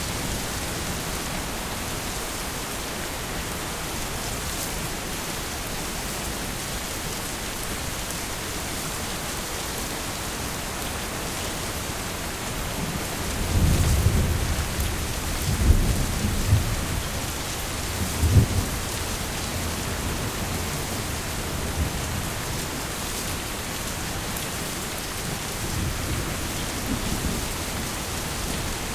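Heavy rain falling steadily, with a roll of thunder rumbling about halfway through that rises to several louder peaks over a few seconds, and a fainter rumble of thunder near the end.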